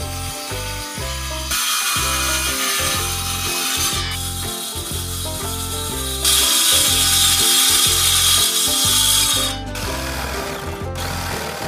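Cordless Ryobi circular saw cutting 3/4-inch plywood, in a cut from about one and a half seconds in and a louder three-second cut from about six seconds in, with a shorter burst of cutting near the end. Background music with a steady beat plays underneath.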